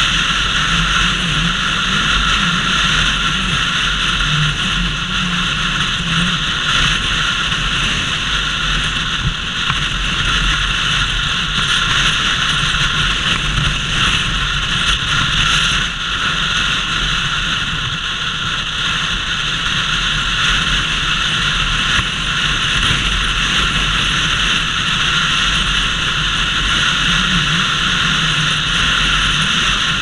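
Steady, loud wind blast on a helmet-mounted action camera's microphone while riding at speed, with the Bajaj Pulsar RS200's engine running underneath.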